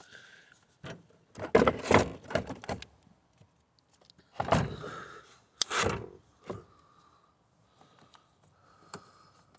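A 12 V AGM car battery being lowered and shifted into its tray: its plastic case knocks and scrapes against the tray in two bursts, about a second and a half in and again from about four and a half seconds, with a few lighter knocks near the end.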